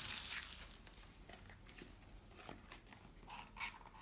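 Trading-card packet wrapper crinkling and tearing as it is opened. The rustle fades after about a second, leaving a few faint small clicks and rustles of handling.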